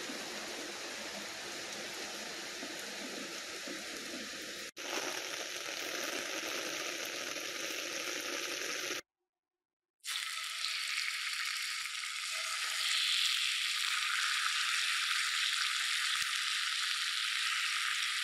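Steady rain falling. After a break of about a second, chicken thighs sizzle in hot oil in a cast-iron skillet, the sizzle growing a little louder partway through.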